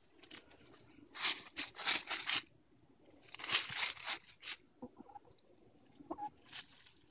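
Easter Egger hens scratching through dry fallen leaves and grass: two bursts of crackling leaf rustle, each about a second and a half long, then a few lighter rustles and clicks.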